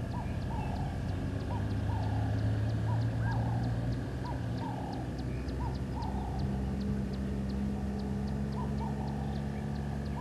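Frogs calling around a waterhole, short calls repeated about twice a second, with a fast high ticking about three times a second and a steady low hum underneath.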